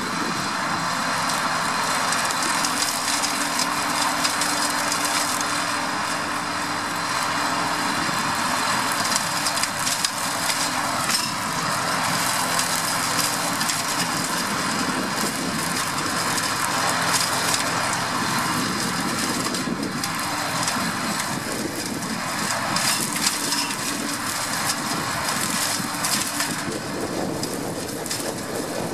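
Flail hedge cutter on the arm of a New Holland 8360 tractor chopping hedge branches: continuous crackling and snapping of wood over the steady running of the tractor's diesel engine.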